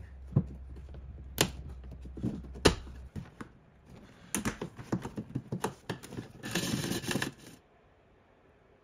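Hands pulling apart the rubber wiring boot at a 2001 Toyota Sienna's liftgate hinge: a string of sharp clicks and taps with scratchy handling noise, over a low hum during the first three seconds, and a short scratchy rush near the end.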